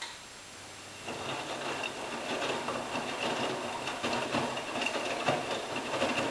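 AEG Lavamat 86760 front-loading washing machine in its wash cycle: after a short click, the drum motor starts about a second in with a steady high whine, and the wet laundry sloshes and tumbles in the turning drum.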